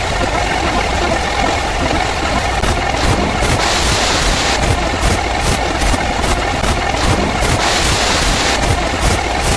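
A steady, continuous engine rumble, like a motor idling.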